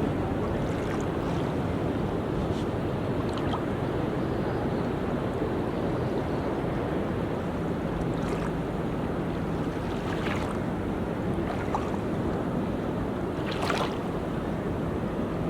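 Steady wash of the sea on a tropical beach, waves and surf at an even level with a few brief splashes.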